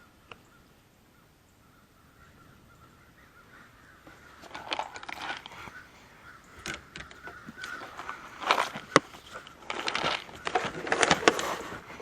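Crows cawing in repeated harsh bursts, starting about four seconds in and getting louder and more crowded toward the end. The agitated calling is that of crows stirred up by something, which the listener takes for either a crow fight or some animal.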